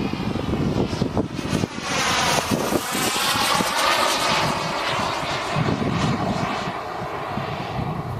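Turbinator RC sport jet's model turbine engine passing by in flight: its hissing whine swells about two seconds in, peaks, then fades away. Gusts of wind buffet the microphone.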